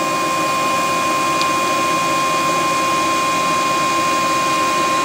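Steady mechanical whirring, like a running fan or small motor, with a constant high whine and no change in level.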